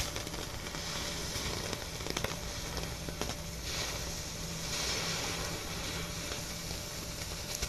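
A lit ground firework burning with a steady hiss and a few scattered crackles.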